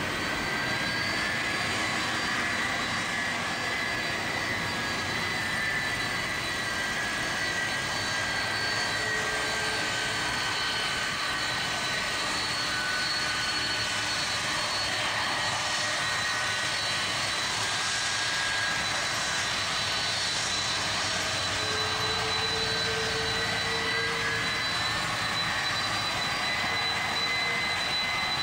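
Boeing 767-400ER's General Electric CF6-80C2 turbofans running at taxi thrust: a steady rushing hiss with high whines that drift slowly in pitch, one dipping and climbing back about three-quarters of the way through.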